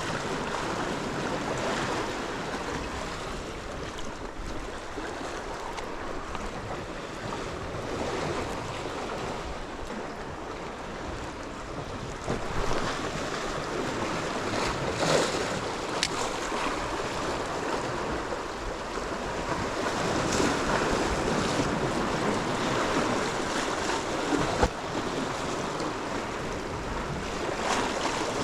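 Sea surf washing onto the shore, a steady rush that swells and eases, with wind buffeting the microphone. A few short sharp clicks stand out in the second half.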